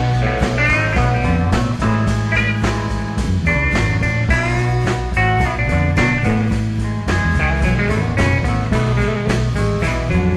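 Psychedelic rock band playing live in an instrumental passage: electric lead guitar with bent, gliding notes over steady bass and drums.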